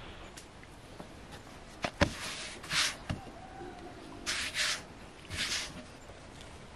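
Thin floured dough sheet being handled on a wooden board: several short soft swishes and rustles, with a couple of light knocks on the wood.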